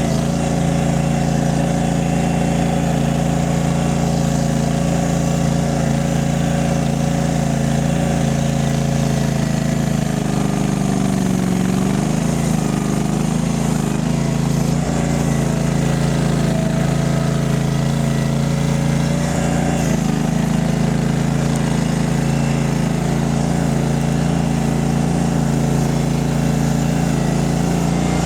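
Mini skid steer engine running steadily, with a brief dip in pitch that recovers about eleven seconds in and a smaller wobble later.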